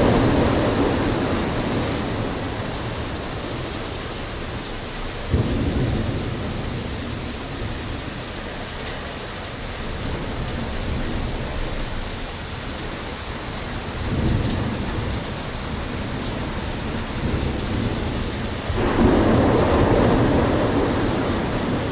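Thunderstorm: steady heavy rain with thunder rolling in low swells, a sudden crack of thunder about five seconds in, and the loudest rumble building near the end.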